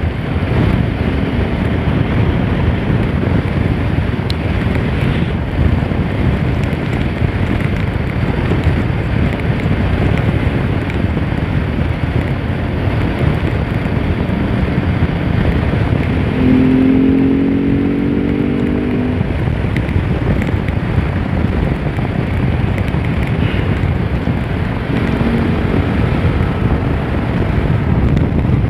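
Bajaj Pulsar RS200 single-cylinder motorcycle running at road speed, with wind rushing over the microphone. About two-thirds of the way through, a pitched tone sounds for roughly two and a half seconds.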